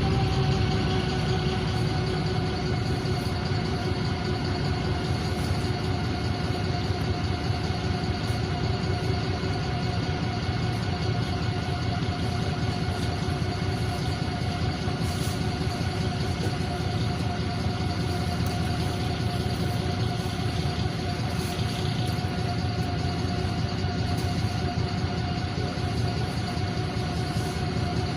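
NefAZ 5299 city bus under way, heard from inside the passenger cabin: a steady low rumble from the diesel engine and road, with a steady high drivetrain whine held level throughout.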